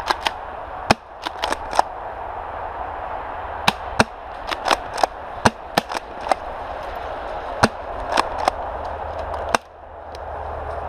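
Airsoft gunfire in a forest: irregular sharp snaps and cracks from spring-powered airsoft guns and their BBs striking, sometimes two or three in quick succession, over a steady low hum.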